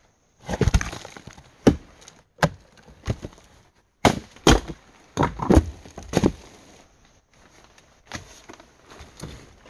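Dry twigs and leaf litter cracking and snapping under a person's hands and feet while crawling out of a tree hollow and climbing over roots and rock. The cracks are irregular and sharp, densest in the first six seconds and lighter near the end.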